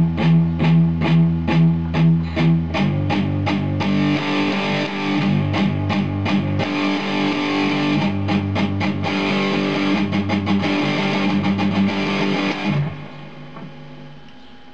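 Distorted electric guitar playing palm-muted power chords as short, separate chugs, about three a second. About three seconds in it moves to denser, more ringing strumming through several chord changes, and stops near the end.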